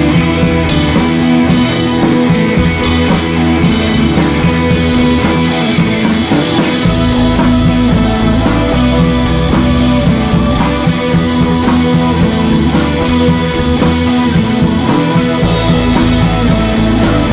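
Background rock music with guitar and drums, playing steadily; the bass becomes heavier about seven seconds in.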